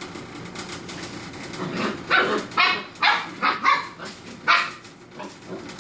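Puppies barking, a run of about seven short, sharp barks starting about two seconds in, as they play and nip.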